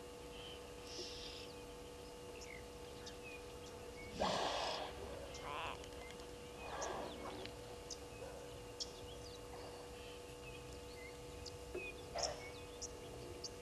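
Outdoor ambience at a bushveld waterhole: scattered short high chirps and ticks, a few breathy bursts of noise, the loudest about four seconds in, and a steady low hum underneath.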